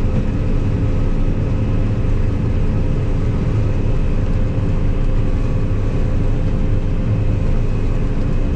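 Combine harvester running steadily while threshing soybeans: a constant engine drone with several steady hum tones.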